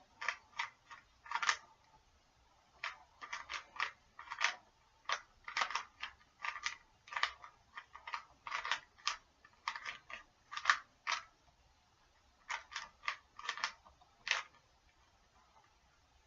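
Faces of a Rubik's Cube being turned by hand, giving quick plastic clicks and clacks in short runs with brief pauses between them.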